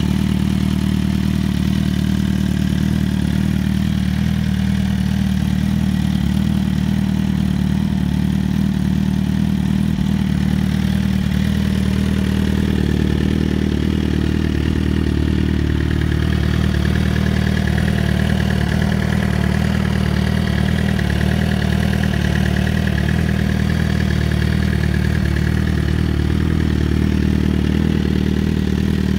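2008 Suzuki GSX-R1000's inline-four engine idling steadily through a custom aftermarket exhaust, with no revving.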